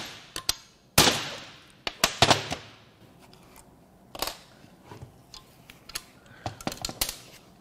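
Sharp metallic knocks and clanks from tools and an aluminium cylinder head being worked on and moved around on a metal bench during valve removal. There are about a dozen separate strikes, the loudest about a second in and just after two seconds, each ringing briefly.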